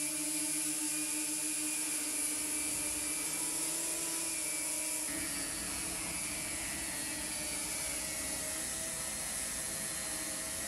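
Quadcopter drone (the FireDrone prototype) hovering, its rotors giving a steady buzzing whine. About halfway through, a low rushing noise from a large open flame joins in.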